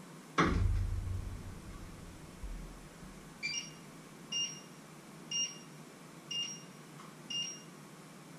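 A heavy thump from pots or pans being handled at the stove, then five short two-tone electronic beeps about a second apart, the first a little lower-pitched than the rest.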